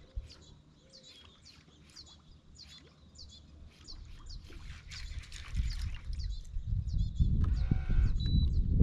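Birds chirping in a rapid, repeated series of short high calls, with a low rumbling noise building up in the second half and becoming the loudest sound near the end.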